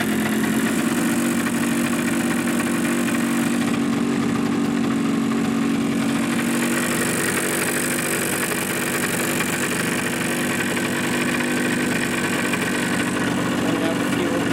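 Suzuki GP100's single-cylinder two-stroke disc-valve engine running steadily at idle on a test stand, running a bit rough.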